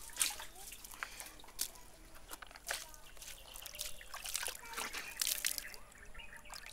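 Well water sloshing, splashing and trickling in and out of a bucket just drawn up by rope, in irregular splashes and spills.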